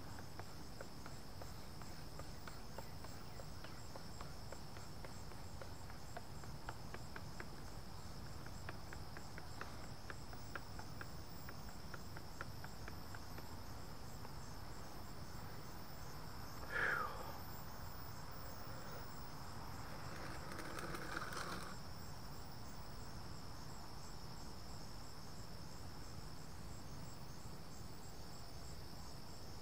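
Steady insect chorus, a constant high-pitched trill without pause. A brief falling squeak cuts in about seventeen seconds in, and a short rush of noise follows around twenty-one seconds.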